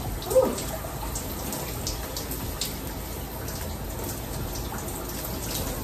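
Rain-style shower head running, water spraying and splashing onto tile and a person's lathered hair, with scattered drips. A brief, sharper sound stands out about half a second in.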